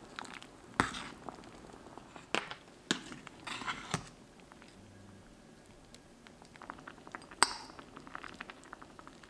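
Metal ladle stirring and scraping in a stainless-steel pot of simmering soup, with several sharp clinks of the ladle against the pot. Near the end comes the loudest clink as soup is ladled into a ceramic bowl.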